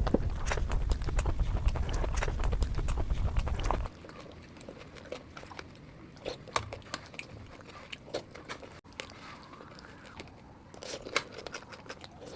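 Close-miked eating sounds: repeated wet clicks of biting and chewing food. For the first four seconds they sit over a heavy low rumble; then the sound cuts abruptly to quieter chewing, which grows louder again near the end.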